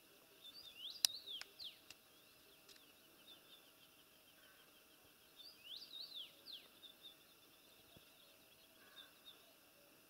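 Faint high squeaky calls: two short phrases of quick rising-and-falling squeaks, about a second in and again about six seconds in, over small bird chirps, with one sharp click during the first phrase.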